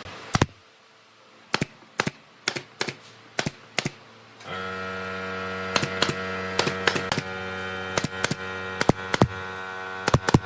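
Sharp, irregular taps or knocks, a few a second. About four and a half seconds in, a steady hum starts under them.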